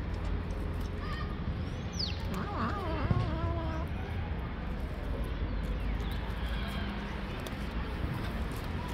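Cats crunching dry kibble over a steady low background rumble. About two seconds in, a short high chirp falls in pitch, and then a wavering call lasts about a second and a half.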